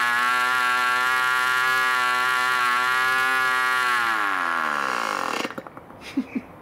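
D-C Tornado Twin, a 5cc boxer-twin glow engine, running steadily at high revs with its propeller spinning. About four seconds in it is shut off: its pitch falls over about a second and a half and it stops. Two short chirps come near the end.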